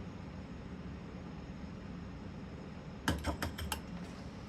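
A quick run of about five small clicks and taps about three seconds in, over a steady low hum: a circuit board, part and tools being handled on the workbench during soldering.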